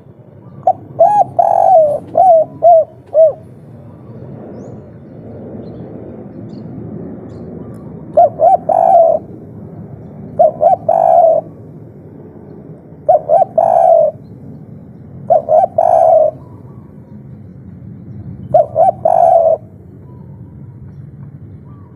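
Spotted dove (tekukur) cooing in the 'kuk 3' style: short phrases of a few notes, repeated about six times at intervals of two to three seconds. The first phrase is a longer run of notes. A low steady background hum runs under the calls.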